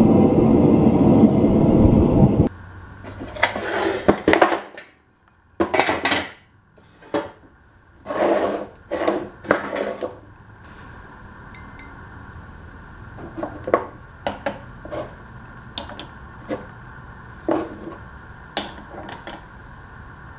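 A loud steady roar that cuts off abruptly about two and a half seconds in. Then a series of handling knocks, and sharp clicks and clacks as solid aluminum ingots are set down on a plywood bench and stacked on a plastic kitchen scale, over a faint steady hum.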